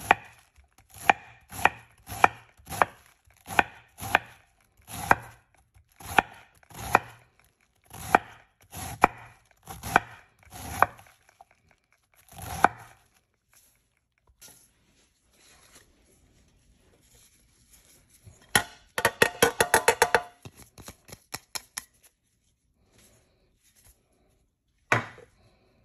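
Chef's knife slicing through a head of cabbage onto a wooden board, one crisp chop every half second to a second for about twelve seconds. After a pause comes a quick run of rapid chops, and near the end a single knock.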